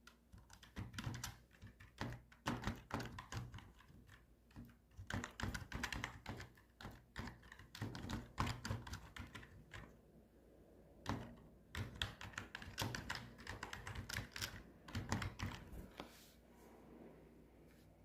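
Typing on a computer keyboard: quick, uneven runs of key clicks. There is a short pause about ten seconds in, and the clicks thin out near the end.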